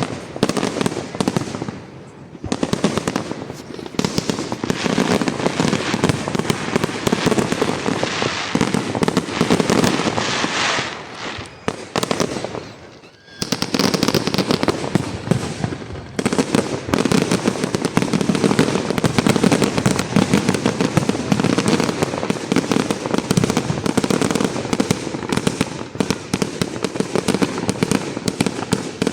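Fireworks display: dense, continuous crackling and popping of bursting shells, dropping to a brief lull about twelve seconds in, then building straight back up.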